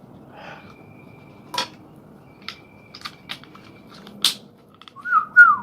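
Small clicks and taps from handling drone parts during a repair, the sharpest about four seconds in, ending with a brief loud squeak that falls in pitch.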